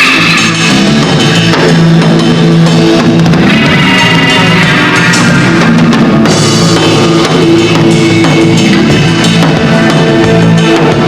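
Live rock band playing an instrumental passage: drum kit and bass drum with guitar, loud and steady.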